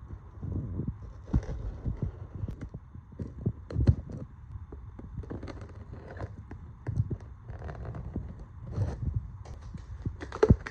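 Cardboard box and packaging being handled while a coffee maker is unboxed: irregular dull thumps, knocks and rustling, with one sharper knock near the end.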